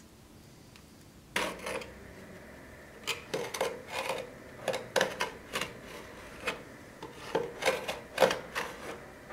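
A blade drawn again and again along a steel ruler, cutting a coarse black sheet: a series of short, uneven scraping strokes, about fifteen of them, starting about a second and a half in.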